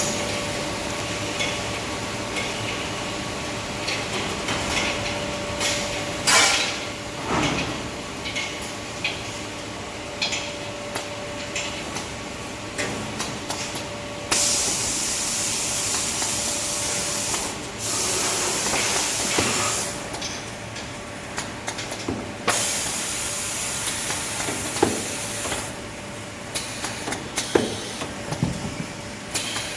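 Toilet paper band saw cutting machine running: a steady machine hum with scattered knocks and clatter, and twice a hiss lasting about three seconds.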